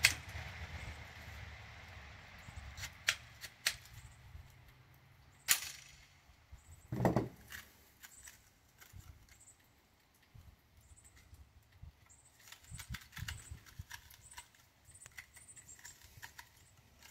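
Sharp metallic clicks and clacks of a mud-fouled HK USP Compact .45 pistol being loaded and having its slide worked by hand. There are a few distinct clacks in the first six seconds, then faint gritty ticking as the slide is worked; the mud is keeping the pistol from feeding and going into battery.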